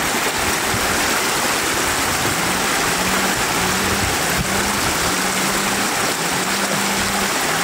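Floodwater rushing steadily over a road edge and cascading down a gravel shoulder into shallow water. A faint low hum comes and goes in short spells from about two seconds in.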